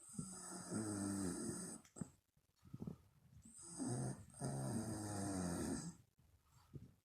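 A woman snoring loudly in her sleep: two long snores of about two seconds each, with a short quiet gap between.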